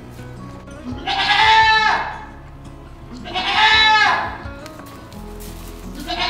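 Nigerian Dwarf goat doe bleating loudly, two calls of about a second each, with a third beginning at the very end.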